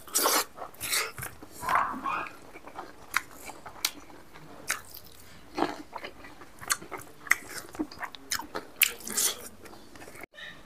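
A person chewing close to the microphone while eating rice and mithun meat by hand, with irregular mouth smacks and clicks.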